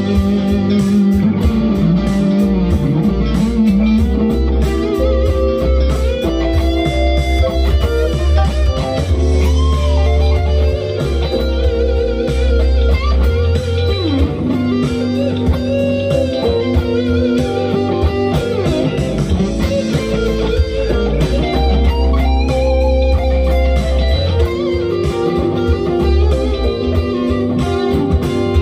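Epiphone SG electric guitar playing lead lines with string bends over a funk backing track in G with bass and drums.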